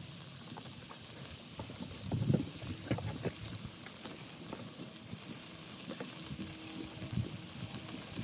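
Raw hamburger patties sizzling on the grate of a hot charcoal kettle grill as more patties are laid on. There is a steady hiss, with a few brief louder handling sounds around two to three seconds in.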